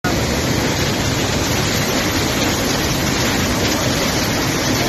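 Muddy flash-flood water rushing in a fast torrent, a loud, steady, unbroken noise of churning water.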